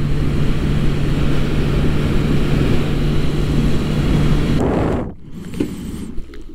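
Motorcycle cruising at a steady speed: loud wind rush on the microphone with a steady engine drone underneath. About five seconds in it cuts off abruptly to a much quieter background with a couple of faint knocks.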